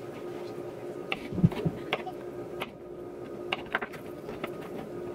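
Serrated kitchen knife slicing cucumber on a wooden cutting board: a scattering of sharp taps as the blade meets the board, with two duller knocks about a second and a half in. A steady hum runs underneath.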